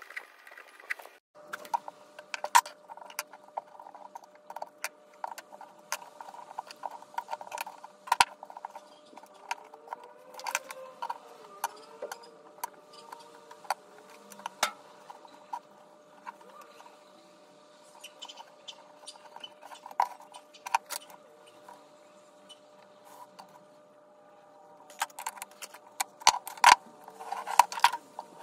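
Chrome steel sockets clicking and tapping as they are set onto a felt-lined socket holder and knock against one another. The clicks come at irregular intervals and are loudest and quickest near the end.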